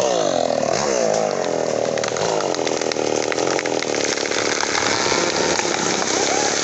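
Ecolait mini chainsaw cutting into a tree trunk. The engine pitch drops and wavers as the chain bites under load, then settles into a steady, strained cut.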